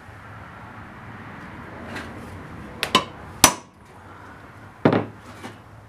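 A few sharp clanks of steel parts being handled and set down: two quick knocks, a louder one half a second later, and another about a second and a half after that with a short ring.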